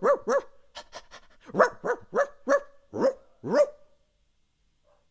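A man's voice imitating Pluto, the Disney cartoon dog, barking: about eight short, pitched barks in quick runs, with a few quick clicks about a second in. The barking stops just before four seconds in.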